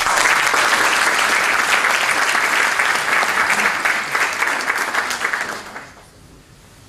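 Audience applauding; the clapping starts suddenly and dies away about six seconds in.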